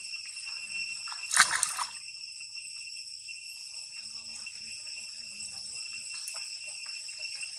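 A brief splash of water about a second and a half in, as a baby monkey swims in a pond. Behind it, a steady high-pitched insect drone runs throughout.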